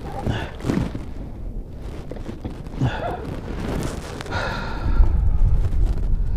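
A man's short breaths and sighs, with wind rumbling on the microphone that gets stronger near the end.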